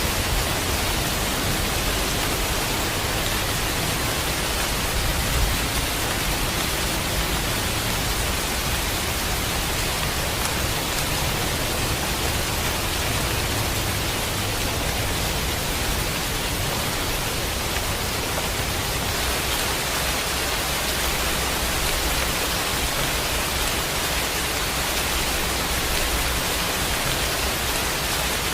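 Steady, even downpour of rain hissing without a break.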